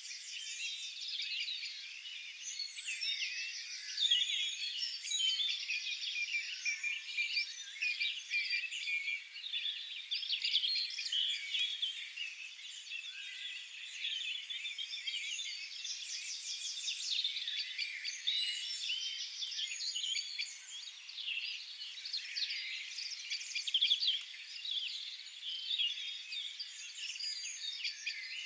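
A dense chorus of many small songbirds singing at once: overlapping chirps, warbles and fast trills that carry on without a break.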